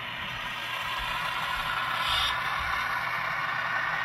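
Model Canadian National ES44 locomotive and freight cars running along the layout's track: a steady rattling hum of wheels on rail and motor, growing louder as the train approaches and briefly louder about two seconds in.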